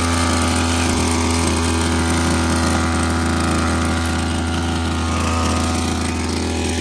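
Small two-stroke petrol engine of a Jamal 708 knapsack power sprayer running steadily, driving the sprayer's pump.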